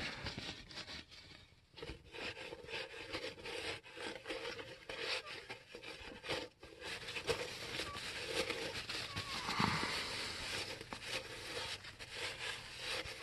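Cloth shop rag rubbing and rustling over a polished steel crankshaft rod journal, wiping it down, with irregular scratchy handling noises close to the microphone.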